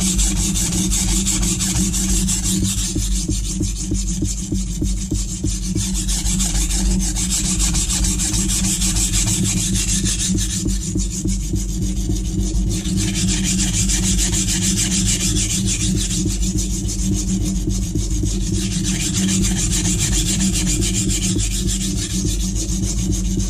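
Steel kitchen knife blade being ground on a coarse silicon carbide benchstone (Norton Crystolon) in a steady run of rapid back-and-forth rasping strokes. The edge bevel is being laid back to a lower, wider angle.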